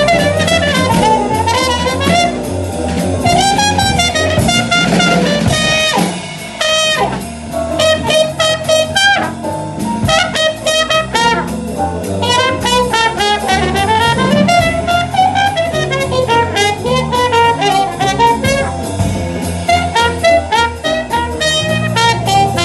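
Live jazz trumpet solo played with a plunger mute that is moved over and away from the bell, giving a wavering, bending melodic line, over piano, bass and drums.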